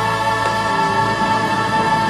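Male singer holding one long high note, with a full orchestra playing beneath him.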